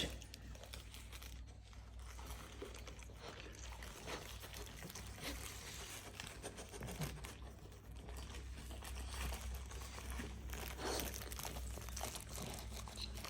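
Food packaging crinkling and rustling as it is handled, with scattered small crackles, a little louder in the second half.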